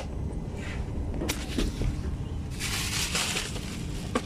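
Handling noise close to the phone's microphone: a few light clicks and knocks and fabric rustling, with a louder rustle lasting about a second some two and a half seconds in, over the low steady rumble of an aircraft cabin.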